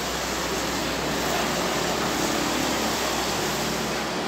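Steady, even rushing noise from the fire scene, with no distinct tones, knocks or speech standing out.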